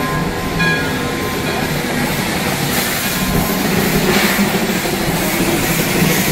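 Shay geared steam locomotive rolling slowly by, steam hissing from its cylinders, the hiss loudest about midway through.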